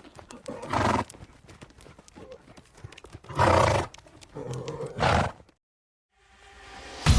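A horse calling loudly three times over a run of light hoof clops. The sound cuts out about five and a half seconds in, and a rising swell starts near the end.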